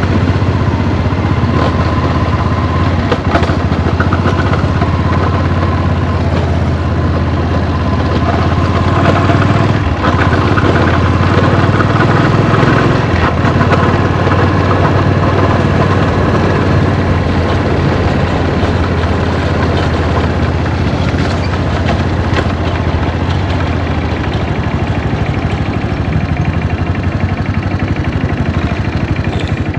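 Yamaha SRX400's single-cylinder engine running steadily, with an abnormal noise that the owner suspects comes from the clutch. It comes on whenever the bike accelerates, though the clutch does not slip and the bike has lost no power.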